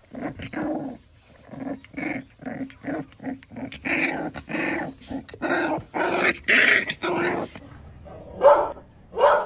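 A dog making a string of short vocal noises in quick succession. They grow longer and louder in the middle, then give way to two sharper, louder calls near the end.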